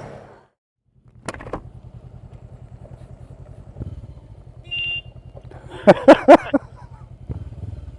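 Motorcycle engine idling with an even low pulse. A short high beep comes just before five seconds in, and a quick burst of four loud sharp sounds about a second later.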